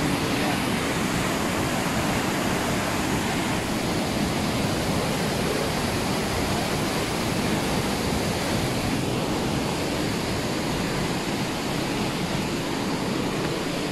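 A high waterfall: a steady, even rush of falling water.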